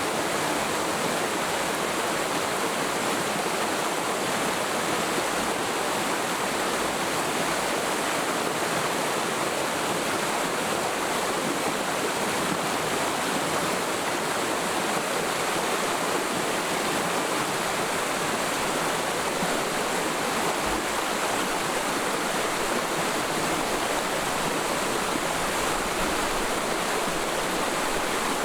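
Mountain stream flowing through a forest valley: a steady, even rush of running water.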